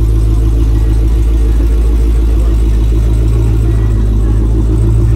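Dodge Challenger engine idling with a loud, steady low rumble as the car creeps slowly past.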